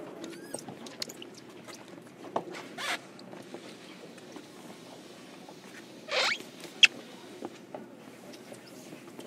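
Inside a JR Kyushu 305 series commuter car: a low steady hum with scattered small clicks and rustles. There are two short rustling bursts, about 3 seconds and about 6 seconds in, and a sharp click just after the second.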